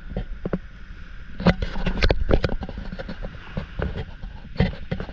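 Irregular knocks, clicks and rattles of gear on an inflatable paddleboard as it is moved across the sand, over a steady low rumble.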